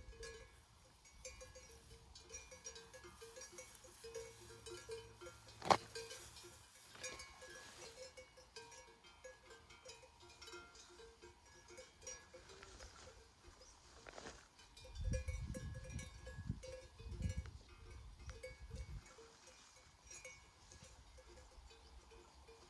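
Bells worn by grazing sheep clanking irregularly and continuously as the flock moves. There is a sharp click about six seconds in, and a few low rumbles around two-thirds of the way through.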